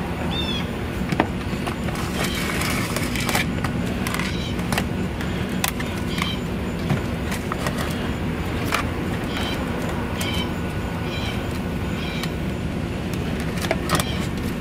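A thin wire being handled under a truck's dashboard: scattered clicks and light rustles against the plastic trim, over a steady low hum, with short high chirps now and then.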